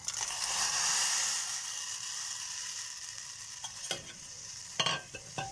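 Boiling water hissing in a steel saucepan as grated palm jaggery is tipped into it. The hiss slowly fades, and a few light knocks come near the end.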